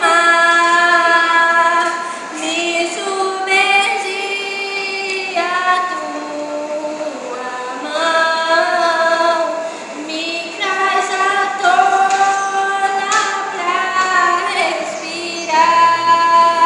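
A woman singing, holding long notes in phrases with short pauses between them.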